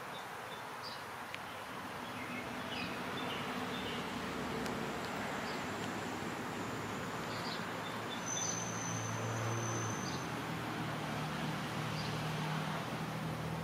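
Large-scale garden-railway model train running on the outdoor track: a steady rolling rumble with a low motor hum that grows a little louder toward the end as it approaches. Faint bird chirps sound over it.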